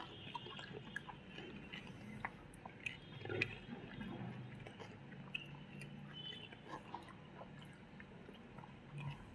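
Close-up eating sounds: chewing and wet mouth sounds, with soft squishes of fingers mixing rice and curry gravy and many small clicks. There is one louder knock a little over three seconds in.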